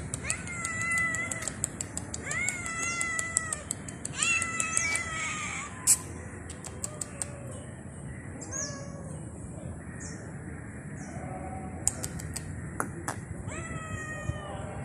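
Stray cat meowing repeatedly at a person. Three long, loud meows come in the first six seconds, each rising and then held; several fainter, shorter meows follow. A few sharp clicks fall between them.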